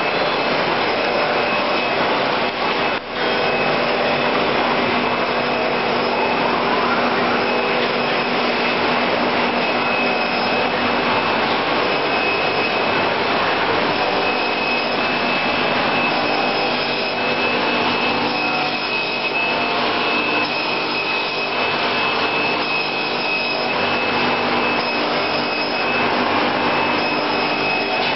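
Wohlenberg City 4000 perfect binder running: a loud, steady mechanical whir with a thin, high, constant whine in it.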